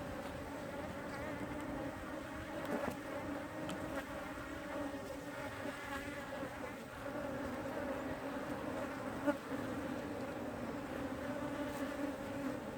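Many honeybees buzzing steadily at an open hive, a continuous hum with two even bands in pitch. A single short click sounds about nine seconds in.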